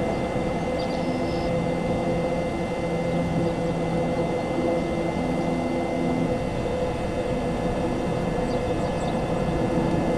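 Steady low hum of an idling vehicle engine, holding a few low pitches that fade in and out, over a constant hiss.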